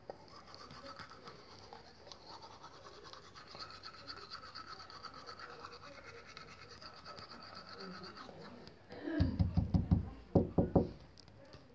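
Faint steady background, then near the end two short bursts of rapid low rumbling thuds on the microphone.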